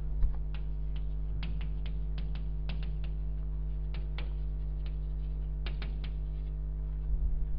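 Chalk tapping and scratching on a blackboard as words are written: irregular sharp clicks, several a second, over a steady electrical hum. A low thump comes just after the start and a few more near the end.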